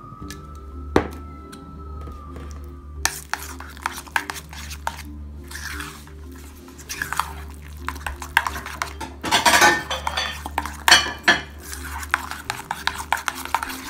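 Metal spoon stirring and scraping thick hummus in a stainless steel bowl, with clinks of the spoon against the bowl's side, starting about three seconds in. A single sharp click comes about a second in, and background music runs underneath.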